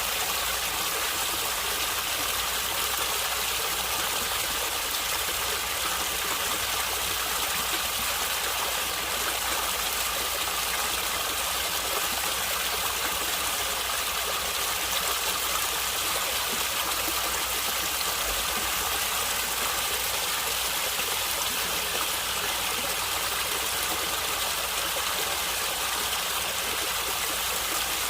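Stream running steadily, a continuous gurgling rush of water that does not change.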